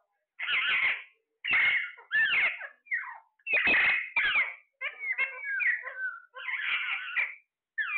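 Parrot giving a rapid series of short, harsh calls, about nine of them in quick succession, each under a second long.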